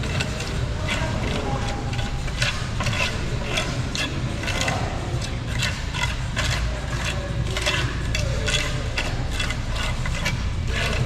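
Repeated scraping strokes of a tool working wet cement, roughly two a second and somewhat irregular, over a steady low rumble.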